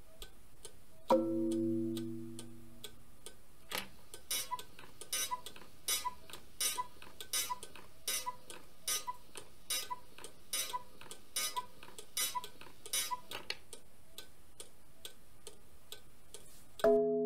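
Pendulum cuckoo clock ticking steadily, about one tick every three-quarters of a second, the ticking fading out about three-quarters of the way through. A low sustained chord sounds about a second in and rings for a couple of seconds, and another chord is struck near the end.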